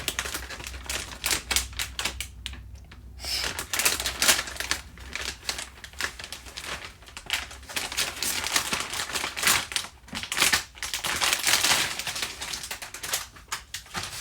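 Motherboard being unboxed: cardboard box and plastic packaging handled, a busy run of taps, clicks and crinkling.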